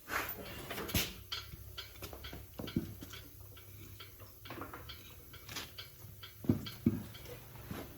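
Irregular light clicks and knocks of tools or parts being handled, a few sharper knocks near the end, over a faint low hum.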